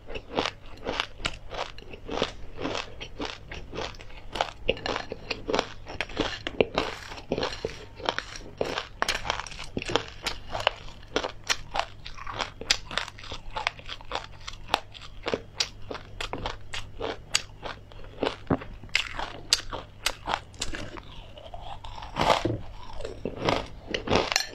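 Close-miked chewing of crispy fried chilies and seeds (chili crisp): a rapid, continuous run of sharp crunches as each mouthful is bitten and chewed.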